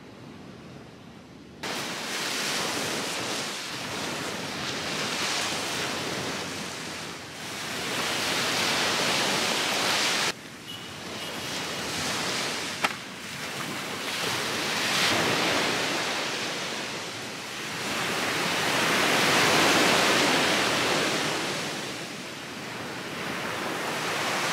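Surf breaking on a beach: the noise of the waves swells and falls away every few seconds. It starts abruptly, breaks off sharply once partway through, and has a single sharp click near the middle.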